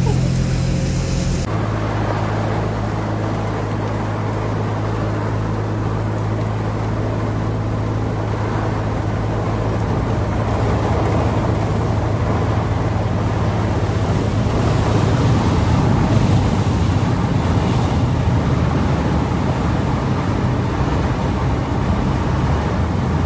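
Inside a vehicle's cabin driving through a flooded road: a steady engine hum under a continuous rushing, splashing wash of floodwater and rain, swelling slightly about two-thirds of the way through.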